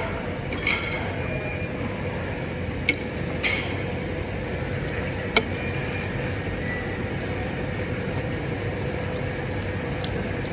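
Steady background hum at a meal table, with a few light clinks of a spoon against a dish.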